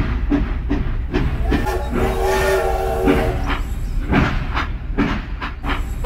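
Battery-powered toy steam locomotive running on plastic track: a steady motor hum with regular clicking, about two to three a second. A whistle-like chord sounds from about one and a half seconds in and lasts nearly two seconds.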